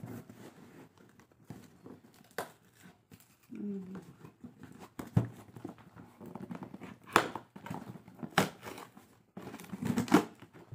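A cardboard shipping box being opened by hand: irregular crinkling, tearing and scraping of cardboard and packing, with a few sharper, louder rips and knocks in the second half.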